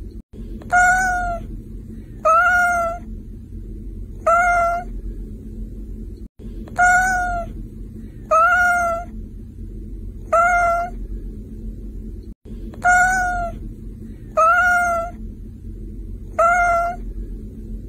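Domestic cat meowing over and over: nine short meows of the same shape, spaced about two seconds apart. The same three-meow pattern comes round about every six seconds, over a low steady rumble.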